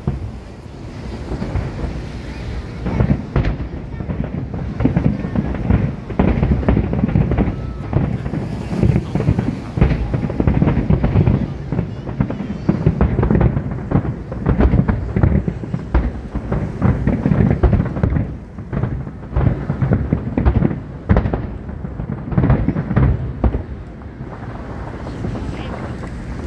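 Aerial fireworks bursting in a dense, rapid barrage of booms that overlap one another, easing off near the end.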